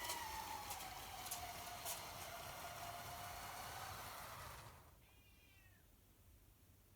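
Electric motor whine from a LEGO-style train's two Power Functions L-motors, falling in pitch as the train slows, then dying away about four and a half seconds in as it stops. A few sharp clicks from the wheels crossing plastic track joints come in the first two seconds.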